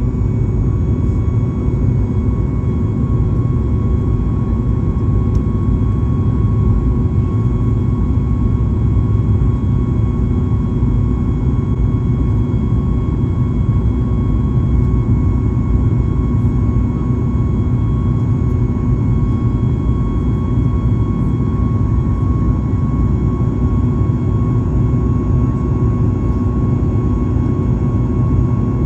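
Steady cabin noise of a Boeing 737 MAX 9 with its CFM LEAP-1B jet engines running: a constant loud rush and low drone with several steady engine tones held through it.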